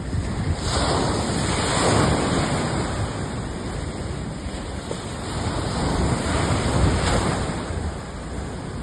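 Loud rushing noise of waves and wind, with wind buffeting the microphone. It swells about a second in and again near seven seconds.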